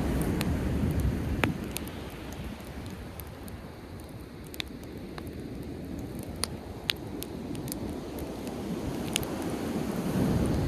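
Driftwood campfire crackling, with scattered sharp pops, over the low rush of sea waves on the shore. The surf is loudest at the start, eases off, then swells again near the end.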